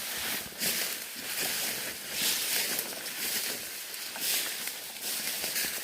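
Leaves and undergrowth rustling in irregular swishing surges, every second or two, as someone pushes through forest brush on foot.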